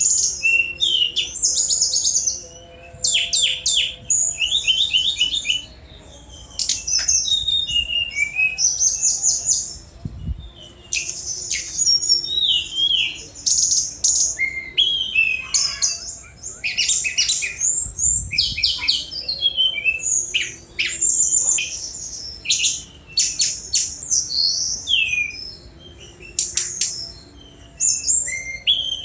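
Tledekan gunung songbird singing fast, varied chattering phrases of rapid trills and sharp, high whistled notes, in bursts of a second or two with short breaks between them.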